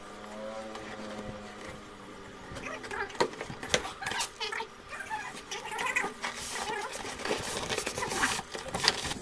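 A cardboard shipping box being opened by hand. A drawn-out squeak comes in the first two seconds, then irregular crackling, scraping and knocks as the cardboard flaps are folded back and a foam packing block is handled.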